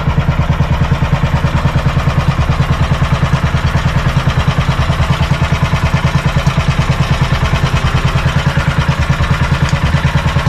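Outrigger fishing boat's engine running steadily under way, with an even beat of about ten pulses a second.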